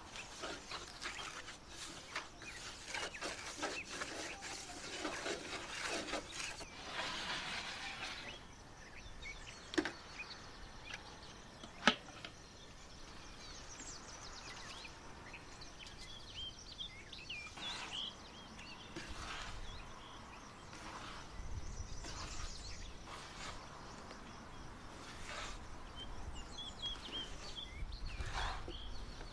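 Fingers raking and stirring dry cornflour in a wooden bowl, a dry scratchy rustle that fades after about eight seconds. Two sharp knocks follow a few seconds apart, the second the loudest sound here. Then it is quieter with birds chirping in the background, and near the end the hands rustle again, tossing raw anchovies in the flour.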